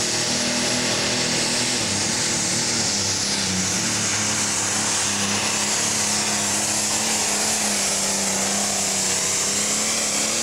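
John Deere 4320 pro stock pulling tractor's turbocharged diesel engine running flat out under load as it drags the weight sled. The engine note holds loud and steady, with a strong hiss over it.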